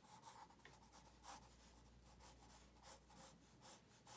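Faint scratching of a pencil on paper in short sketching strokes, about two a second, some a little louder than others.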